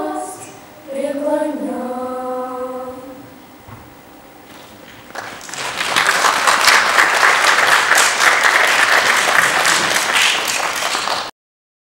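A children's choir sings and holds its final chord, which fades out after about three seconds. About five seconds in, audience applause starts; it is the loudest sound and cuts off abruptly near the end.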